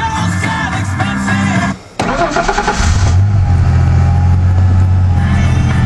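1993 Ford Ranger cold-started in freezing weather: the starter cranks briefly about two seconds in. The engine catches within a second and settles into a steady fast idle through its Gibson aftermarket exhaust.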